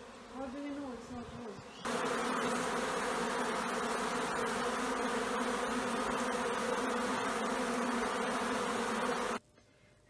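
A swarm of honeybees buzzing, a dense drone of many wingbeats. It is fainter and wavering for the first two seconds, then loud and steady, and it cuts off sharply about a second before the end.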